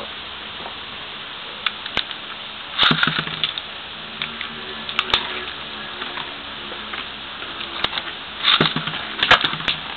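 Two Beyblade spinning tops, Meteo L-Drago Rush and Tornado Herculeo, spinning in a plastic stadium with a faint whir, clacking against each other in sharp hits, with a flurry of clashes about three seconds in and another near the end.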